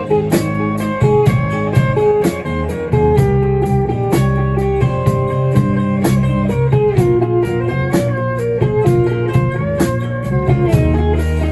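Rock band playing an instrumental passage: a guitar melody over sustained bass and a steady drum beat.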